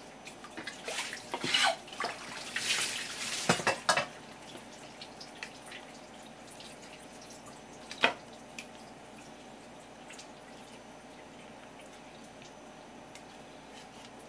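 Wet handling of a thin, translucent piece of bigfin reef squid on a wooden cutting board: irregular rustling and small clicks, busiest in the first four seconds, then a single sharp tap about eight seconds in.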